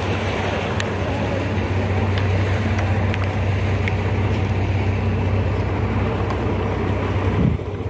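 Outdoor street noise: a steady low rumble with wind buffeting the microphone, dropping suddenly a little before the end.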